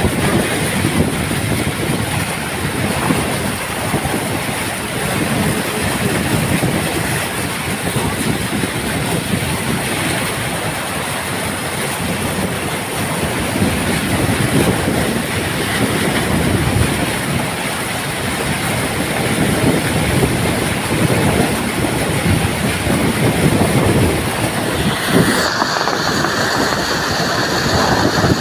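Steady, loud rush of water churned up by a car driving through a flooded road, its wake spraying and sloshing along the side of the car.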